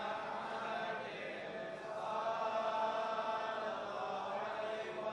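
Faint unison chanting by a congregation of men, held pitched tones away from the microphone: the group response of blessings on the Prophet Muhammad (salawat) after the call to pray upon him.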